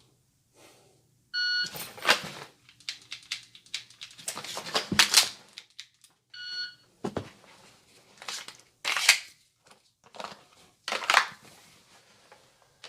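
A shot timer beeps to start the drill, then a run of sharp clicks, knocks and shuffling steps follows as a pistol is dry-fired and its magazine changed. A second beep about five seconds after the first marks the end of the 5-second par time, and more knocks and scuffs follow.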